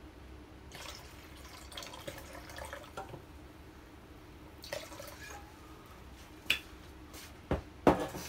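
Liquid trickling and splashing as it is poured into a plastic measuring jug, in uneven spells, followed by a few sharp knocks near the end.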